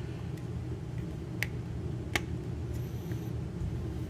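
A few short, sharp clicks of action figure parts being handled and pushed together, the clearest about a second and a half in and again just after two seconds, over a steady low hum.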